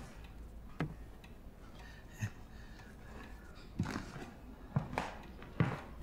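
A few soft knocks at irregular intervals, about five in six seconds, over faint room tone.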